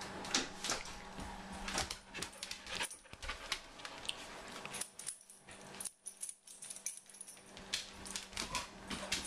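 A dog moving about on a hard floor, making irregular light clicks and clinks.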